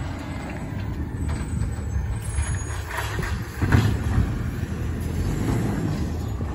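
Diesel engine of a recycling garbage truck running as the truck rolls slowly along, a steady low rumble, with a brief louder noise a little past halfway through.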